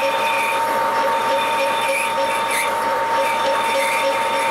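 Metal lathe running, its gear train giving off a steady whine with a light rhythmic clatter about three times a second.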